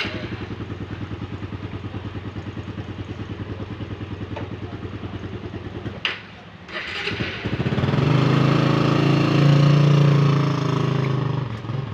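An engine running with an even, rapid putter, dropping away briefly about six seconds in, then coming back louder and steadier.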